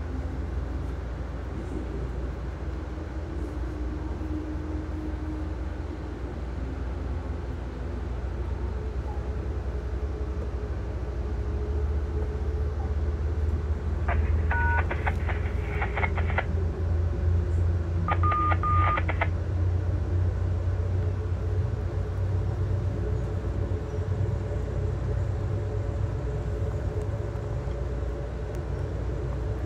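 Steady low rumble of a passenger train's ride, heard from inside the coach, growing louder around the middle. Two short bursts of rapid clicking with brief electronic beeps come midway, a few seconds apart.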